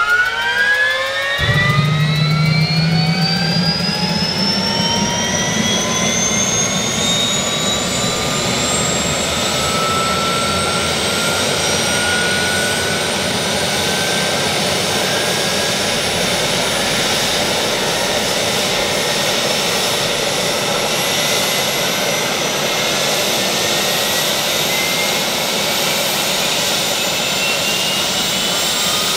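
Bell 407 helicopter's Rolls-Royce 250 turboshaft starting up: a whine rising steadily in pitch as the engine spools up. A low rumble joins suddenly about a second and a half in as the engine lights off.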